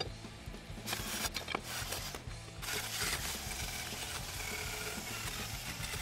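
Background music, with a steady harsh metal-working noise from about two and a half seconds in: a power drill worked against a steel motorcycle brake disc clamped in a vise.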